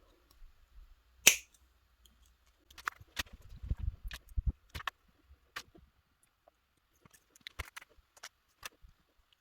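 Small hard parts being handled on a tabletop: scattered clicks and taps, with one sharp snap about a second in, a busy run of clicks and soft knocks from about three to six seconds, and a few more clicks near the end. Typical of metal keyring hardware and pliers being worked by hand.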